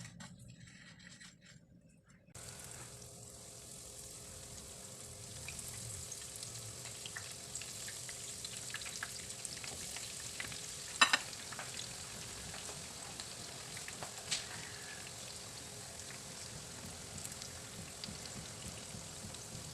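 Breaded tuna pies frying in hot oil: a steady sizzle that starts about two seconds in, with a sharp clack about halfway through and a smaller one a few seconds later.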